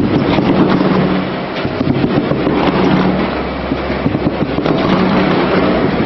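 Loud, steady machinery noise with a dense clatter of small knocks and a faint low hum underneath.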